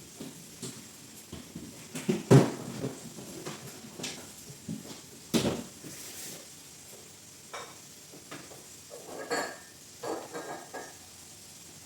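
Kitchen clatter of dishes and cutlery being handled: scattered knocks, the loudest about two and five seconds in, then a few short ringing clinks later on.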